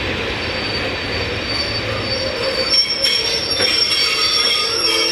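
Railway train's wheels squealing on the rails as it moves slowly, over a steady rolling rumble. The high-pitched squeal of several tones sets in about halfway through and grows louder.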